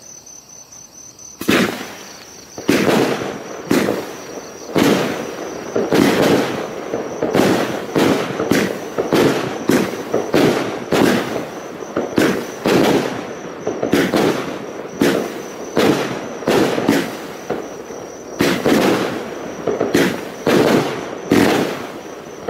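Color Thunder firework cake, a 25-shot 20 mm battery, firing: starting about a second and a half in, a steady string of sharp bangs, one to two a second, as the shots launch and burst.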